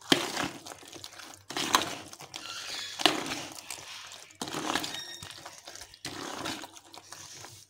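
Metal spoon stirring a thick, wet mix of yogurt, boiled chickpeas, potato and soaked fried dumplings in a plastic bowl: about six scraping, clinking strokes, one every second or so.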